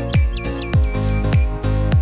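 Upbeat background music: a steady kick-drum beat a little under twice a second over sustained pitched notes, with short high chirping notes in the first part.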